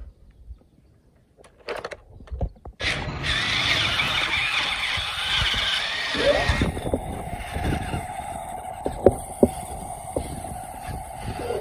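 Radio-controlled trucks' small electric motors and plastic gearboxes whining under load while one truck tows the other on a rope, with tyres crunching and scrabbling on wet gravel and dirt. It is almost silent apart from a few clicks for the first three seconds, then a loud gritty running sound comes in and settles into a steady whine with scattered knocks.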